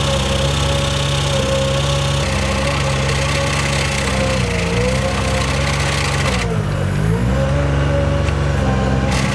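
Work boat's engine driving the hydraulic boom cutter as it trims tree limbs; the engine hum sags in pitch and recovers twice, about four and a half and seven seconds in, as the cutter bogs down. The cutter meets a branch too thick for it and stalls, the hydraulic fluid passing through the relief block.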